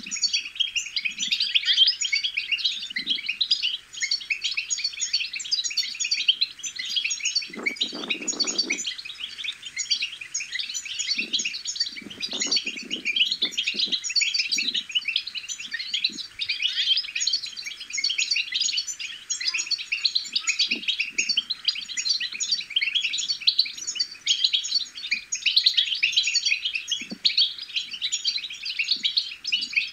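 European goldfinches twittering: a rapid, unbroken chatter of short high chirps and trills, the subsong used to stir other goldfinches to sing.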